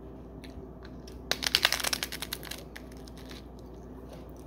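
Teeth biting into a crisp red Takis-style hard taco shell: a burst of rapid crackling crunches lasting about a second, starting just over a second in.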